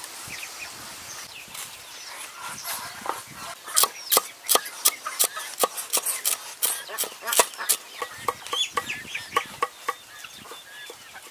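Cleaver chopping green onions on a wooden cutting board: a quick run of sharp knocks, about four a second, for several seconds. Poultry calling in the background, with chirping calls near the end.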